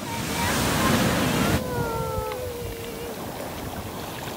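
Ocean waves breaking and foaming surf washing up the sand, loudest in the first second and a half, then settling to a steady wash.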